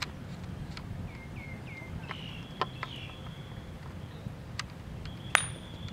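A gateball stick strikes the ball once about five seconds in, a single sharp crack. Before it there is a steady low rumble of wind on the microphone, a few faint clicks, and three short bird chirps about a second in.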